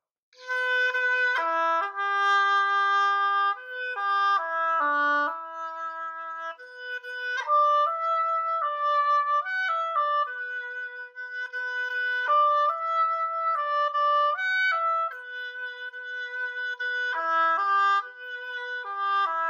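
Solo oboe playing a mellow melody in its lower register, one line of held notes broken by short quicker passages.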